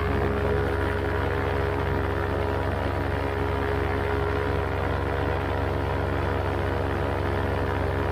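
Paramotor engine and propeller running steadily in cruising flight, an even drone.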